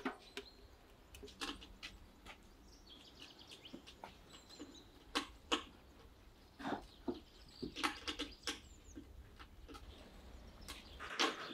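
Small birds chirping in the background, with scattered short light knocks and clicks from things being handled, the sharpest clusters about five seconds in, around eight seconds in, and near the end.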